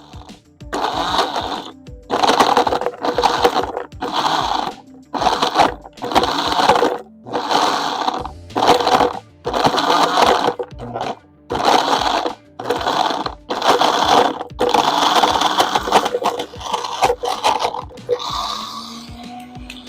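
Philips Walita Duravita 1200 W blender running in short on-off bursts, about fourteen in all, each starting and stopping abruptly, as it grinds chunks of brick. Music plays underneath.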